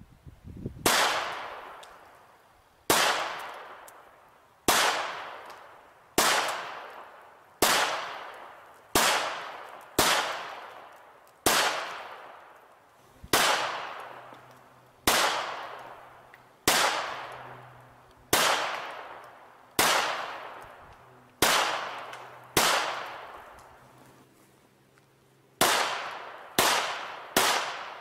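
Argentine Sistema Colt Model 1927 .45 ACP pistol firing aimed single shots, about one every one and a half seconds, each with a long echoing tail. Near the end the shots come faster, close to two a second.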